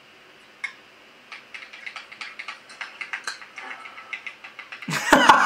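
Rapid, irregular clicking taps of typing on a phone keyboard. A louder voice breaks in near the end.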